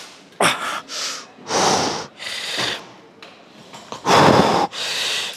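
A man breathing hard in quick, forceful puffs in and out, about six breaths, the loudest about four seconds in, as he strains through the start of a timed strength-exercise set.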